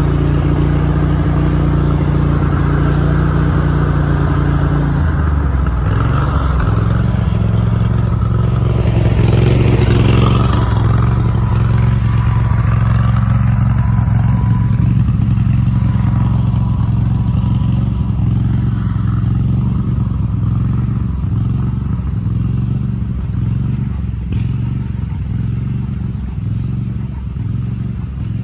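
A small vehicle's engine running steadily as it drives over rough ground, with the pitch dropping once about five seconds in. Light knocks and rattles come with the bumps later on.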